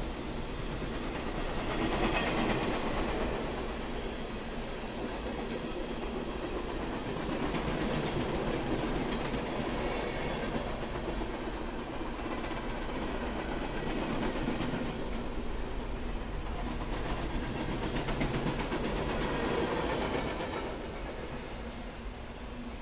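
Freight cars of a CSX manifest train, boxcars and then autoracks, rolling past: a steady rumble and rattle of wheels on the rails that swells and eases as the cars go by, dropping off a little near the end.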